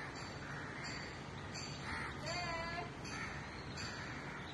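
Repeated bird calls over a steady background hiss, with one longer, more pitched call a little after halfway through.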